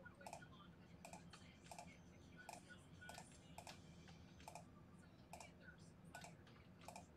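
Faint computer keyboard typing: separate key presses, irregular, one or two a second.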